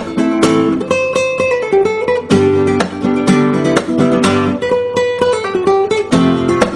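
Background music: acoustic guitar playing strummed chords and plucked notes without pause.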